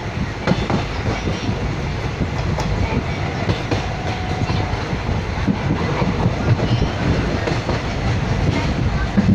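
Train running, heard from inside the coach by a barred window: a steady low rumble of wheels on the rails with irregular light clatter.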